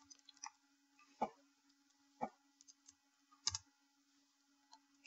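Scattered keystrokes on a computer keyboard: a few sharp clicks roughly a second apart with fainter taps between, over a faint steady hum.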